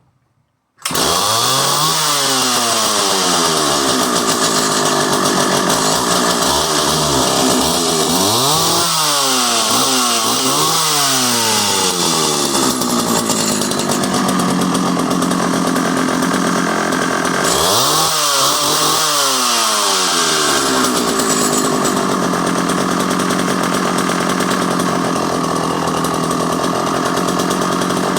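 1979 Pioneer P41H two-stroke chainsaw comes in suddenly about a second in and runs throughout. It is revved up and down several times, with the pitch dropping and climbing back, and is held at steady high revs in between and through the end: it is running well.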